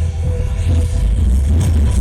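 Music playing over a steady, heavy low rumble.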